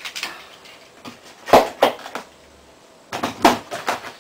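Hard plastic and metal clicks and knocks from an airsoft magazine and its BB loader being handled and set down in the packaging box: two short runs of about three knocks each, the loudest about a second and a half in.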